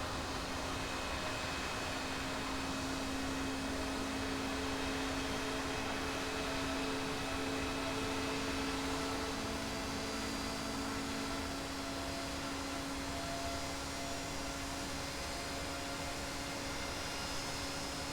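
GE Passport turbofan jet engine running at a steady setting: a broad rushing noise with several steady whining tones over it, the highest edging slightly upward near the end.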